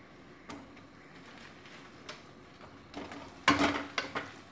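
Wooden spatula scraping and knocking against a kadai while fried cauliflower is stirred into thick gravy, mostly quiet at first with a faint click, then a run of louder scrapes and knocks from about three seconds in.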